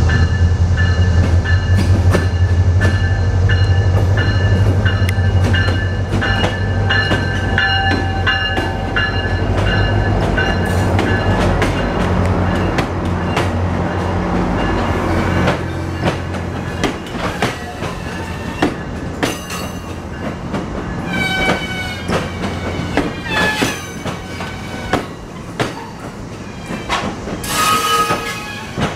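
A commuter train with a diesel locomotive passing close by. The locomotive's engine drone dies away about halfway through as the bi-level coaches roll past. Wheels click over rail joints and squeal in the second half.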